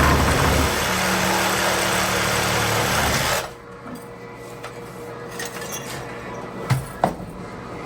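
Power tool running loud and steady, cutting off abruptly about three and a half seconds in; two sharp clicks follow near the end.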